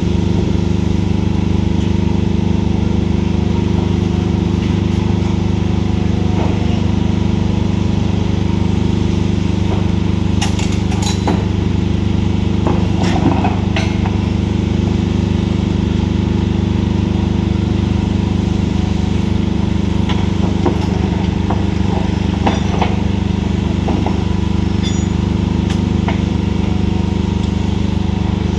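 Heavy diesel engine of earthmoving machinery running steadily under work, with a few scattered metallic clinks and knocks, such as bucket or stone contacts.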